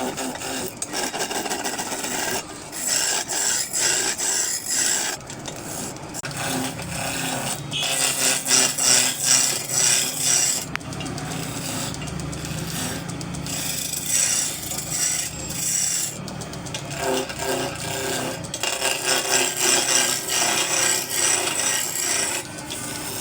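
A hand tool scraping across wood in runs of quick back-and-forth strokes, with short pauses between the runs.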